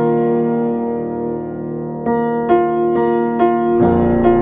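Background piano music: a held chord, then a gentle melody of single notes from about two seconds in, with lower notes joining near the end.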